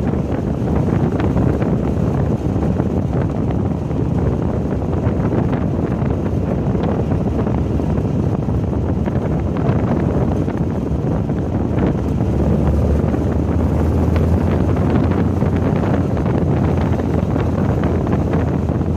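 Car engine running under way at speed, with heavy wind buffeting the onboard microphone.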